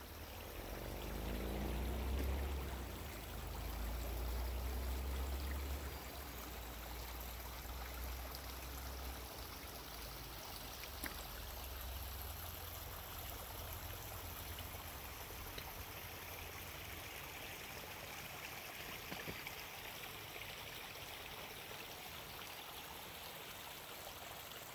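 Forest stream rushing steadily over rocks, an even watery hiss. A low rumble sits under it over roughly the first ten seconds, then fades out.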